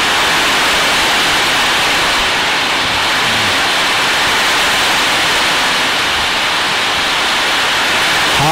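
Heavy rain falling, heard from inside the building as a loud, steady hiss.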